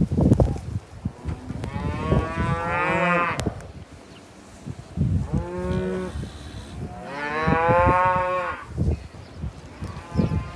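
Cattle mooing: three long, drawn-out moos and the start of a fourth near the end, with scattered low knocks and thumps between them.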